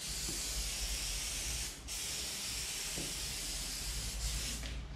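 Aerosol can of spray adhesive hissing as glue is sprayed onto carpet, in two long sprays with a short break about two seconds in.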